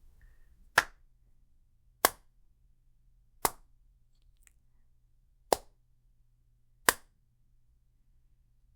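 Blade impact sound effect: five sharp metal strikes, one every one and a half to two seconds, each dying away quickly.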